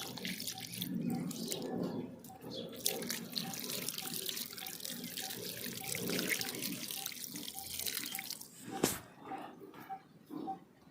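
Water splashing and running as freshly pulled carrots are washed by hand, with a faint high pip repeating under it. A sharp knock near the end is the loudest sound, and the splashing dies down after it.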